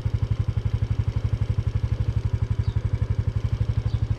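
Small motorcycle engine idling with a steady, even putter.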